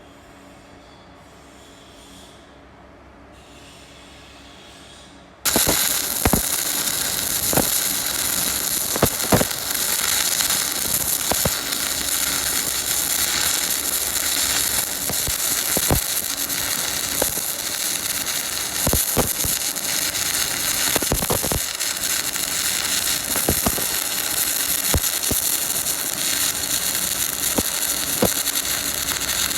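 Stick-welding arc with a 7016 electrode: struck suddenly about five seconds in, then a steady hiss with irregular sharp pops as the rod burns.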